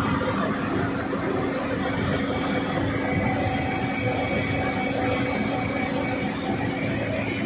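Diesel engine of a JCB 140 tracked excavator running steadily, with a thin steady whine over the engine note.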